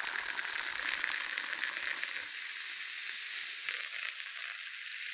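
A steady hiss with a fine crackle through it, like fizzing bubbles or sizzling.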